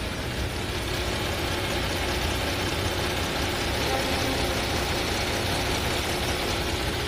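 Kia K9's gasoline direct-injection (GDi) engine idling steadily under the open hood, heard close to the accessory belt drive. It is a quiet, even idle.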